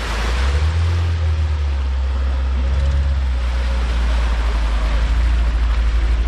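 Off-road SUV engine running steadily under load as the 4x4 drives through mud and water toward the camera, getting louder as it comes up close.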